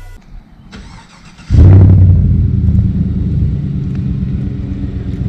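A pickup truck engine starting about a second and a half in, with a brief surge, then idling with a steady low rumble.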